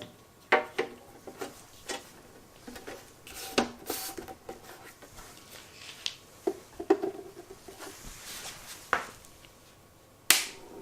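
Scattered clicks, knocks and light metallic clatter of small parts and tools being handled, some with a short ring, and one sharp click near the end.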